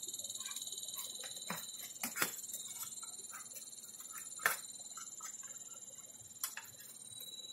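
Scattered light metallic clicks and taps as a small screwdriver works on an LCD monitor's mainboard and its metal chassis, about five sharp ones, the clearest around two and four and a half seconds in. Under them runs a steady faint high-pitched whine.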